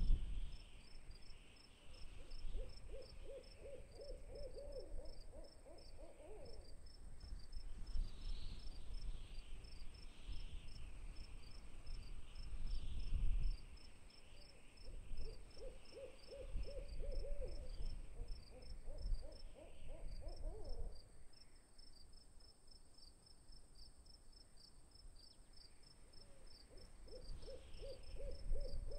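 Night ambience: an owl hooting in several runs of quick repeated notes, over steady cricket chirping and a low rumble.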